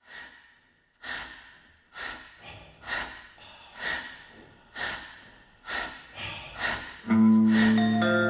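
Opening of a live band performance: a sharp percussive hit about once a second, each one dying away. At about seven seconds, louder sustained chords with a low bass note come in.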